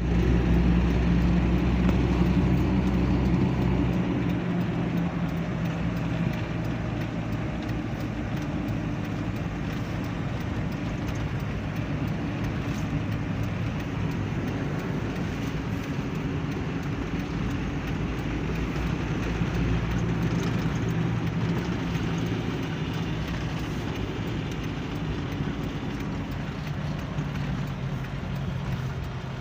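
A motor vehicle's engine running steadily with road noise, its pitch shifting a little as the speed changes; loudest in the first few seconds.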